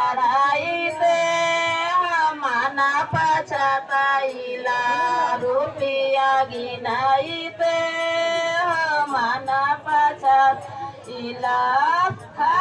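A group of women singing a traditional Bihari wedding folk song, with long held, gliding notes.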